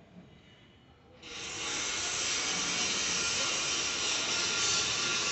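A steady hiss that comes on suddenly about a second in and keeps going without change.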